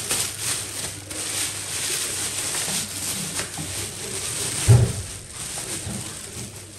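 Thin plastic bag rustling and crinkling as it is pulled over an air fryer. About two-thirds of the way through there is a single dull thump as the appliance is set down.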